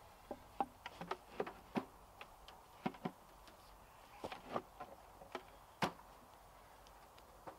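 Ratchet strap being cinched down around a wooden hive box: a run of sharp clicks coming in uneven groups, some louder than others.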